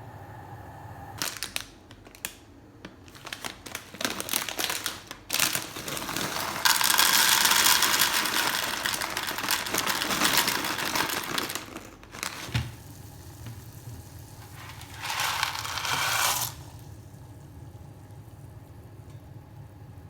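Kitchen handling sounds: crinkling and rustling of packaging with scattered clicks, then a few seconds of steady louder noise in the middle and a shorter burst near the end, over a faint low hum.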